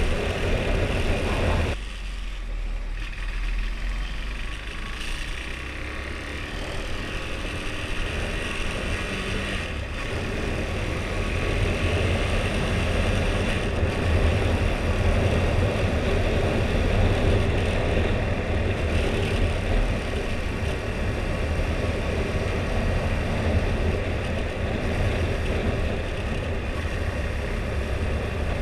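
Husqvarna Svartpilen 401's single-cylinder engine running on the move through its stock exhaust. It drops off sharply about two seconds in as the throttle closes, then builds back up over several seconds, with wind rushing on the microphone.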